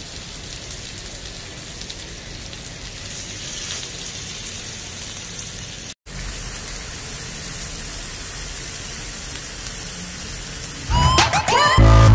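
Sliced meat sizzling on an electric tabletop grill pan: a steady frying hiss, broken by a brief dropout about halfway. Music comes in near the end.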